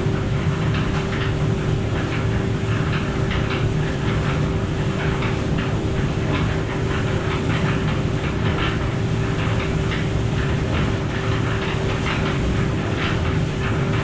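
Portable electric cement mixer running, its drum turning and concrete rattling and tumbling inside over a steady motor hum.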